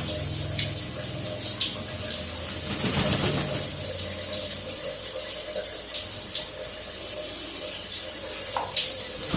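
Water running from a tap in a steady splashing hiss, broken by short splashes.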